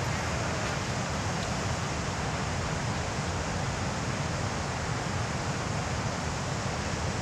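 A steady, even rushing noise, densest in the low end, with no distinct events and no change in level.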